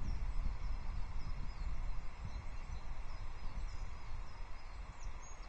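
Wind buffeting an outdoor microphone with an uneven low rumble, with faint, high, scattered chirps of small songbirds in the background.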